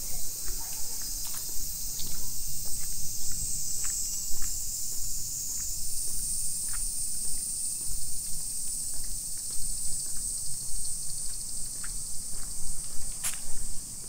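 Summer cicadas shrilling in a steady, dense high hiss that shifts slightly in pitch about six seconds in, with a few faint ticks and one sharp click near the end.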